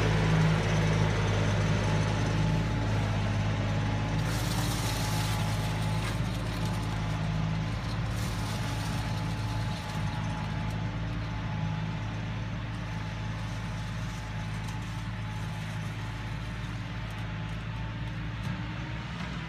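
Kioti NX-series tractor's diesel engine running steadily under load as it pulls a box scraper, growing gradually fainter as the tractor moves away.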